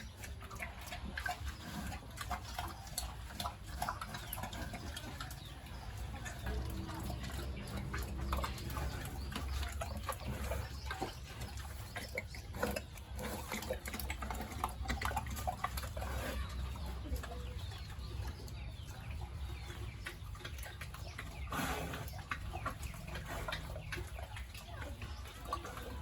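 Farm animals calling and shuffling about in a pen, with scattered short clicks and knocks over a steady low hum.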